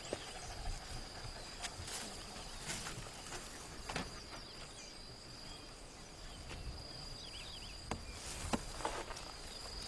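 An insect trilling on one steady high pitch, with scattered snaps and rustles of grass and brush being handled.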